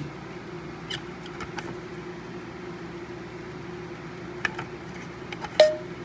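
Test button on the plastic base of an Amway E-8375 smoke alarm being pressed: a few faint ticks, then near the end three sharp plastic clicks about half a second apart, each with a short ring. The alarm's horn does not sound. A steady low hum runs underneath.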